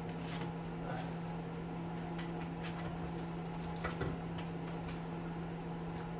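Scattered light clicks and scrapes of hand tools working on a small electric motor to pull out its copper windings, over a steady low hum.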